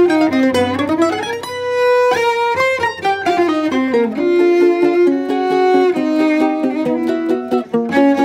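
Cello and 10-string bandolim playing a choro duet: a bowed cello line with plucked bandolim notes.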